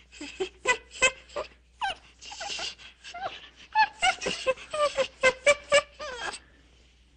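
Monkeys calling: a rapid series of short squeals and chatters that bend in pitch, with harsher screeching stretches about two seconds in and again from about four to six seconds in.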